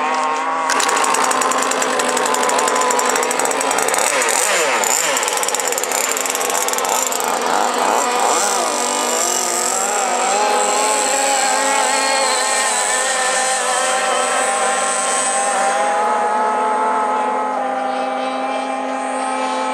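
Small two-stroke engine of a radio-controlled F1 tunnel-hull racing boat starting up hard about a second in. It runs at high revs, its pitch rising and falling as the boat races across the water, over a steady lower drone.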